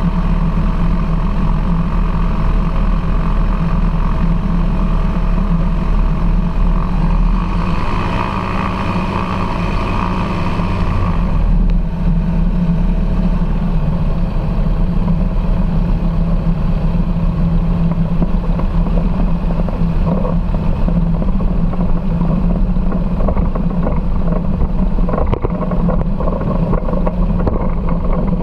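Foxbat light aircraft's engine and propeller running steadily at low power while taxiing, with a brighter, higher-sounding stretch for a few seconds about eight seconds in.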